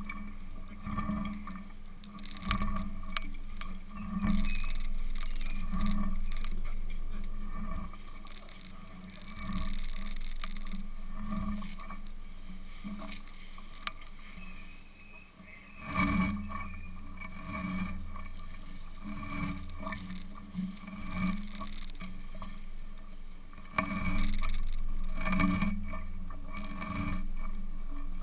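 Rubbing, irregular knocks and rustling from an action camera strapped to an elephant as she walks and feeds in brush, with louder stretches of scraping as branches and leaves brush past.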